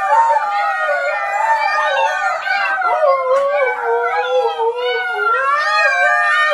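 An adult husky and a litter of husky puppies howling together, many high, wavering howls overlapping.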